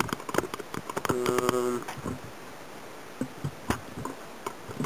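Handling noise of a camera being picked up and moved: scattered clicks and knocks, the loudest a sharp knock past the middle, with a short steady hum about a second in.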